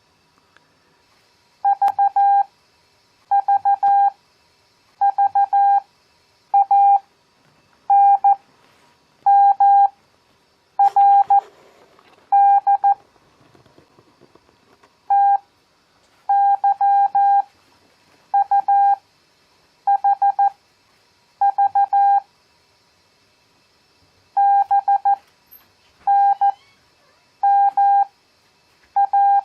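Morse code (CW) practice tone, a mid-pitched steady beep keyed in dots and dashes. Characters are sent at 14 words per minute with long Farnsworth gaps between them, for an overall pace of 7 words per minute.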